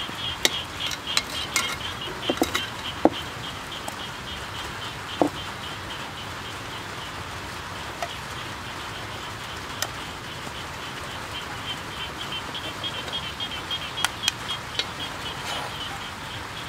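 Metal tongs clicking and scraping against a steel wok a few times, over a steady, rapid, high-pitched chirping in the background that pulses several times a second.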